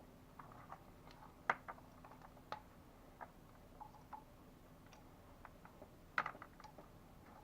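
Scattered light clicks and taps of tools and small parts being handled under the bonnet, the loudest about a second and a half in, again a second later, and a short cluster near the end.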